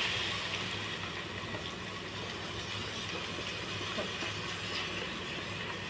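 Steady sizzling hiss of chopped shallots, curry leaves and green chillies frying in oil in a pan, as thick blended tomato paste is poured in on top.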